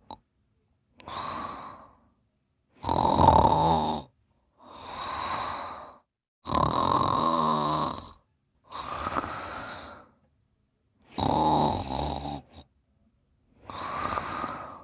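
Snoring in deep sleep: three loud, fluttering snores alternating with softer, breathier breaths, with short silences between each breath.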